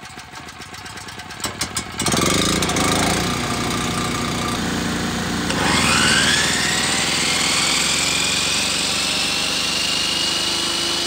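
An engine-driven machine starts up about two seconds in after a few clicks and keeps running. About halfway through, a whine rises and then holds steady.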